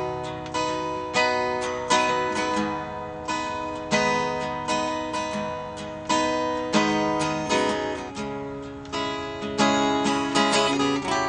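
Acoustic guitar strumming chords, each ringing out and fading before the next, with electric bass and electric guitar playing along in an instrumental passage without vocals.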